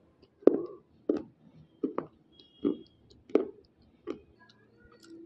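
A hard white unshaped slate pencil crunched between the teeth: about seven sharp crunches, each under a second apart, stopping about a second before the end.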